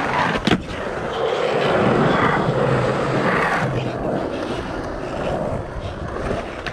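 Skateboard on a concrete skatepark ledge and ground: sharp clacks of the board hitting the ledge and landing right at the start and again about half a second in. Then the wheels roll over rough concrete, the rolling fading as the skater rides away.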